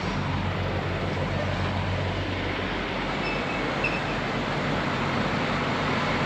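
Semi truck's diesel engine idling steadily, a low even hum under a steady hiss.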